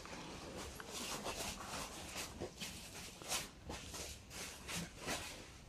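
Irregular soft crackling and rustling of dry banana-leaf litter, like slow careful footsteps, several small crackles a second with a few louder ones.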